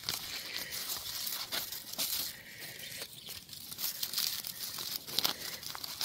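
Dry, papery onion leaves rustling and crackling as gloved hands push through them, a run of short crackles with a quieter lull in the middle.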